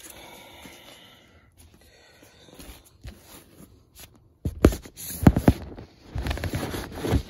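Close handling noise of an LP and its cardboard jacket against the microphone: soft rubbing at first, then two bouts of loud scuffs and knocks from about halfway in, as the vinyl record is slid out of its sleeve.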